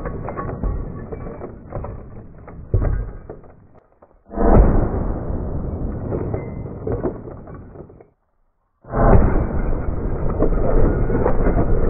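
Gunshots striking a large solid glass ball, each a sudden blast followed by cracking and shattering glass. It opens on the fading tail of one hit, a second comes about four seconds in, and a third near nine seconds stays loud as the ball bursts apart.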